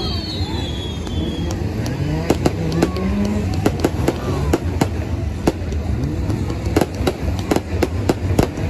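Fireworks going off in sharp, irregular bangs and crackles over the low running of a pack of BriSCA F2 stock car engines. One engine revs up about two to three seconds in.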